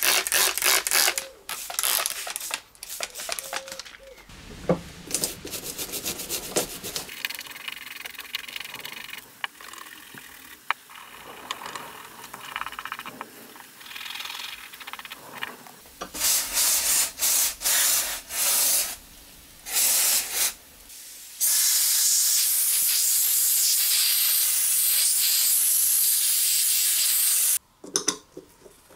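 A stiff brush scrubbing the grimy body of a small-engine carburettor. Then come several short bursts of spray hiss, followed by one long steady hiss of about six seconds that cuts off abruptly, as the carburettor is sprayed clean.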